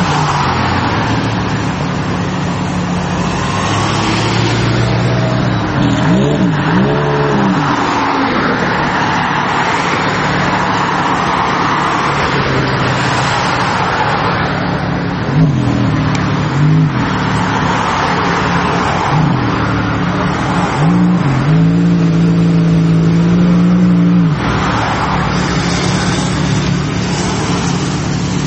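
A loud sports car engine running in traffic, its pitch rising and falling in several revs between stretches of steady running, with road and traffic noise throughout.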